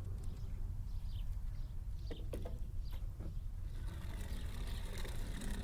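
Steady low rumble with a few faint light clicks and taps, as die-cast toy cars are handled.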